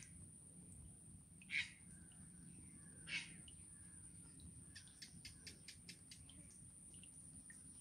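Birds calling: two short calls about a second and a half apart, then a quick run of short chirps.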